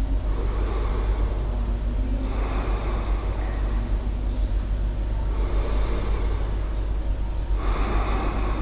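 A person taking slow, deep breaths through the nose, three in all, during a lying side stretch, over a steady low hum.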